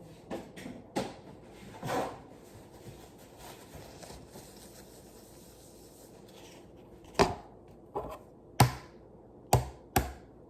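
Kitchen clatter: a few light clicks, then five sharp knocks on a hard surface close together near the end.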